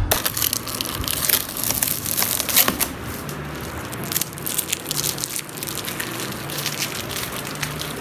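Packing tape being ripped off a cardboard box and the cardboard flaps pulled open, making irregular crackling and crinkling.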